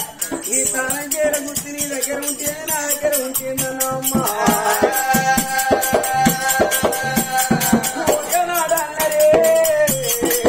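Oggu katha folk music: a voice sings a line, holding long notes in the middle, while a barrel drum is beaten in a steady beat with rattling percussion.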